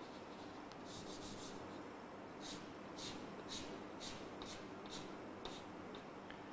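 Faint chalk strokes on a blackboard as segment lines are drawn. A quick run of short scratches comes about a second in, then single short strokes about twice a second.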